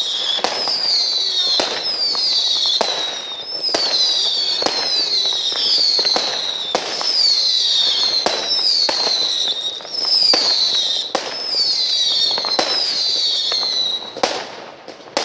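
Fireworks battery firing a rapid series of whistling shots: a falling whistle about every 0.7 s, with sharp bangs in between. The whistles stop about a second before the end, leaving a few separate bangs.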